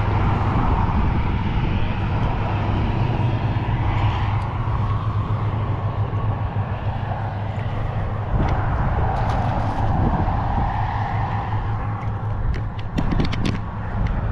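Strong wind blowing across the microphone, a steady loud rumble, with a few sharp clicks near the end.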